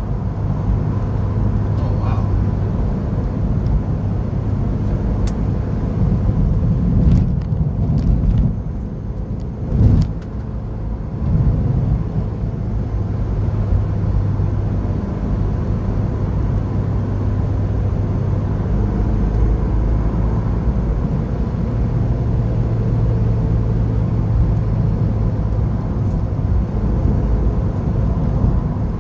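Mazda MX-5's four-cylinder engine and tyre noise heard from inside the cabin while cruising, a steady low drone. About ten seconds in the sound briefly drops away and there is a sharp knock.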